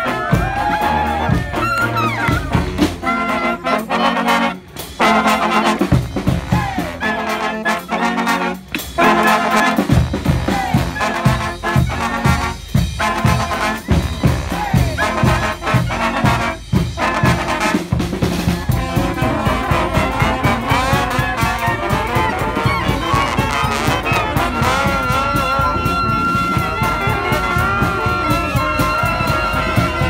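Live street brass band of trombones and saxophones with a bass line and drums, playing an up-tempo tune. In the first several seconds the horns play short chord stabs with brief breaks and no bass. Then the bass and a steady beat come in, and one horn holds a long high note near the end.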